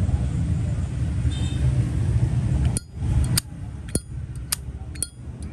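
A steady low rumble, then from about halfway in, sharp metallic clinks about twice a second as a Zippo lighter's lid is flipped open and shut, working the hinge so it loosens up.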